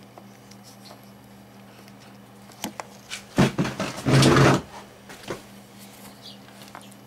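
Handling noise at a workbench: a few sharp clicks, then a short burst of clattering and rubbing about halfway through, over a steady low hum.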